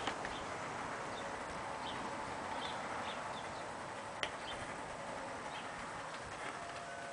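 A small 16mm-scale live-steam de Winton locomotive running past with its logging train: a steady hiss with light clicks and one sharper click about four seconds in, while birds chirp. A faint steady tone starts near the end.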